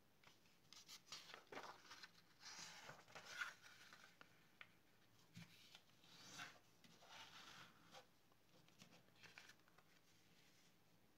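Quiet rustling and scraping of paper sheets as they are handled and rubbed with a small pointed metal tool, in a series of short strokes.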